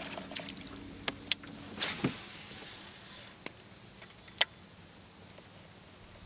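A cast with a baitcasting rod: a whoosh about two seconds in as the line runs off the reel, fading over the next second, with a few sharp clicks before and after.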